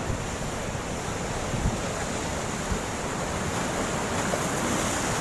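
Sea waves washing onto the shore in strong wind, with gusts rumbling on the microphone; the surf swells up about four seconds in.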